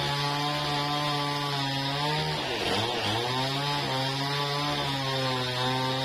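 Band sawmill running while it saws teak, a steady machine hum with a brief dip in pitch about two and a half seconds in, as when the blade takes load, then back up to speed.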